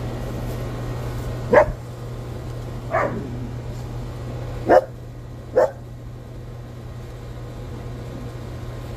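A dog barking four single barks, spaced a second or two apart, over a steady low hum.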